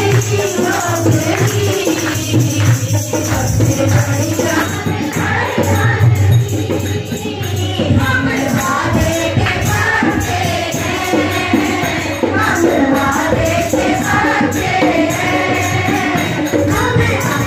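Devotional song: a singing voice over a steady jingling percussion beat.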